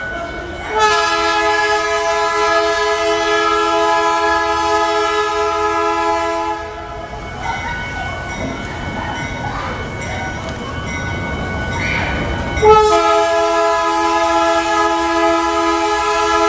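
Freight locomotive's multi-chime air horn sounding a long blast of about six seconds. After a gap of about six seconds it sounds a second long blast, which is still going at the end. In the gap the train rumbles.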